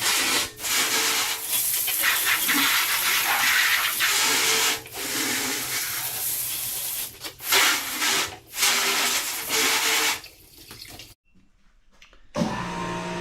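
Water spraying hard as the milk house walls and doors are washed down, a steady hiss broken by short stops. Near the end the spray stops, and after a moment of quiet a steady machine hum starts.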